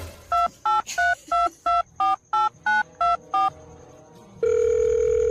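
Telephone keypad tones: ten short two-note beeps dialed at about three a second, followed near the end by a steady telephone tone.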